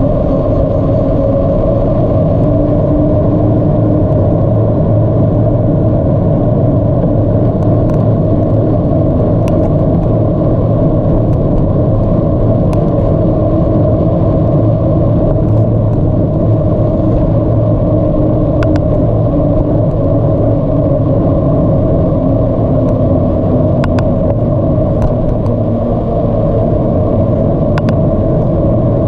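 Steady wind rumble and tyre noise from a moving bicycle, loud throughout, with a few faint clicks.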